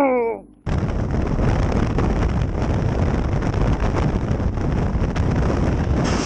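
Wind rushing over the camera microphone of a motorcycle riding at freeway speed: a steady, loud rush that starts abruptly just under a second in, with the bike's running mixed underneath. Just before it there is a short falling cry.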